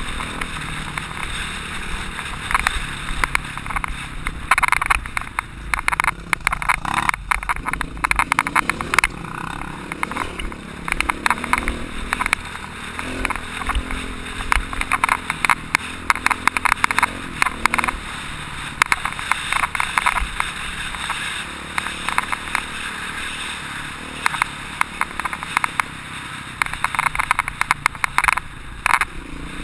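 Off-road motorcycle running under way on a bumpy dirt trail, with wind rushing over the microphone and frequent knocks and rattles as the camera is jolted.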